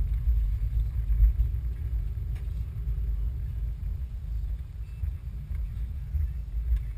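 Car cabin noise while driving: a steady low rumble of road and engine heard from inside the car.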